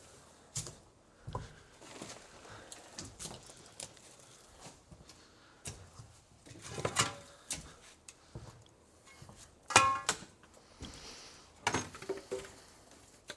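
Scattered knocks and clatters of junk being handled and shifted, with a louder metallic clang about ten seconds in that rings briefly.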